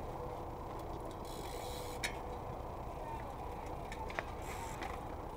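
Steady low background noise with two sharp clicks, about two and about four seconds in, and two brief hissing patches.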